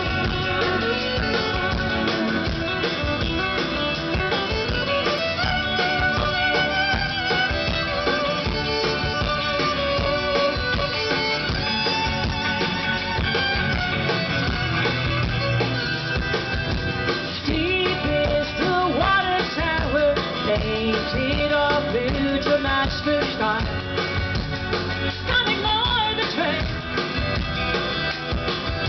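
Live rock band playing through a stage PA, heard from the crowd: guitars, drums, organ and violin, a continuous song passage.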